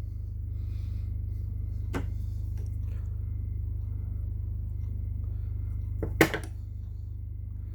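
Small plastic parts of a Mercedes W123 power-window switch clicking as they are pressed together by hand: one sharp click about two seconds in and a louder quick double click near the end. A steady low hum runs underneath.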